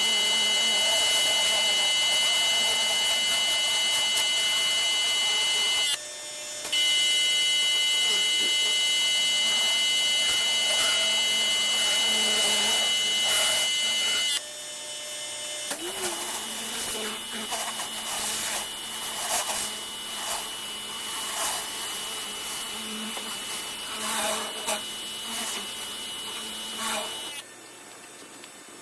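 Pressure washer running with a steady high-pitched whine, dropping out briefly twice. In the second half it is quieter and uneven, with irregular rushes over the continuing whine.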